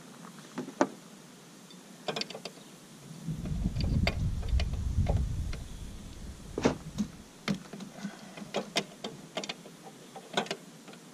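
Irregular metal clicks and clinks of a wrench working the brake line fittings on a car's brake master cylinder. A low rumble runs from about three seconds in to about six and a half.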